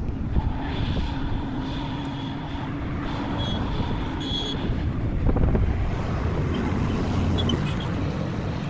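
Construction machine's diesel engine running steadily with a low rumble, a faint steady whine over it for the first few seconds.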